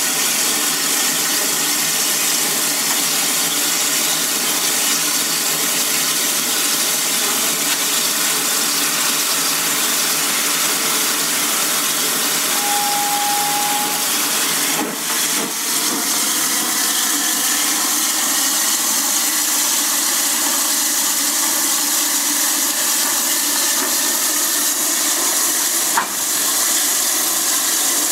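Steam locomotive hissing steadily as steam escapes, an even rushing hiss that does not pulse. About halfway through, a short single-pitch tone sounds for a second or so.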